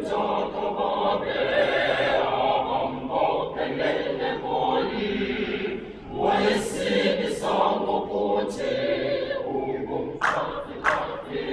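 High school choir singing in harmony, with a brief pause between phrases about six seconds in.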